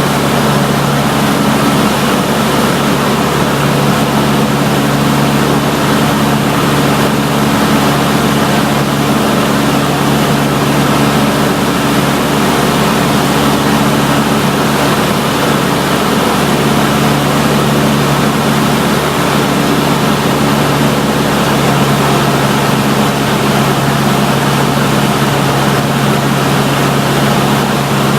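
Cessna 152's Lycoming O-235 four-cylinder engine and propeller running steadily: an even, low drone that holds one pitch, over a constant rush of air noise.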